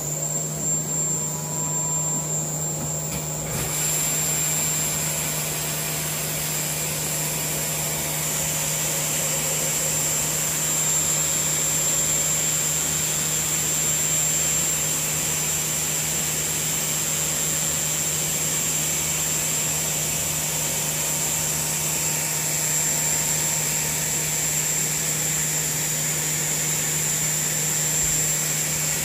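X7 CNC mill spindle running steadily at high speed with a high whine. Flood coolant comes on about three and a half seconds in and sprays from the new manifold's nozzles onto the spinning tool and the table as a steady hiss.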